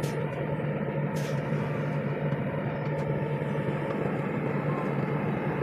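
Heavy-equipment diesel engine running steadily at a constant speed, with a couple of faint clinks.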